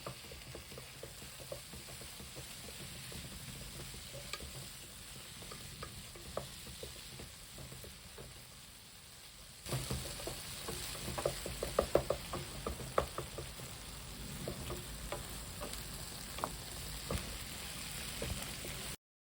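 Chicken pieces dry-roasting in a pan with pepper, sizzling while a spatula stirs and scrapes against the pan. The sizzle jumps louder about ten seconds in, with a quick run of spatula knocks soon after, and cuts off suddenly near the end.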